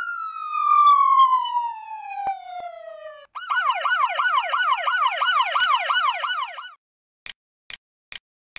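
Police siren sound effect: a tone sliding steadily downward for about three seconds, then a fast warbling yelp for about three more. It cuts off and is followed by short, evenly spaced ticks about twice a second.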